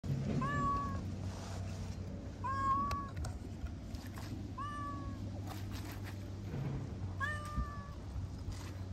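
A stray cat meowing four times, about two seconds apart, each meow short with a quick rise and then holding its pitch.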